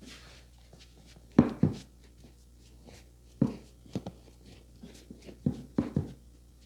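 A masseur's hands slapping and striking a head in a head massage: about seven sharp hits, some in quick pairs.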